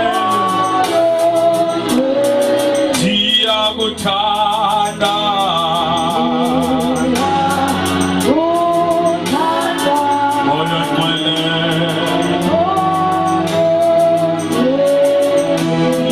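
Slow gospel worship song sung by a man into a microphone, with long held notes that waver, over instrumental backing and a steady ticking beat.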